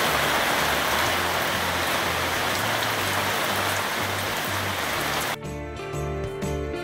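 Steady rain, heard from under a pop-up canopy, with background music and a moving bass line underneath. About five seconds in, the rain cuts off suddenly and only the music remains.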